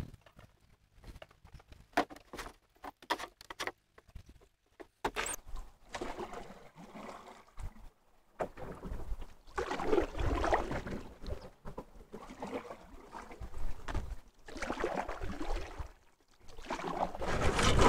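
Canoe paddle strokes: water swishing and splashing in surges about every two seconds, with a few sharp knocks and clicks in the first few seconds.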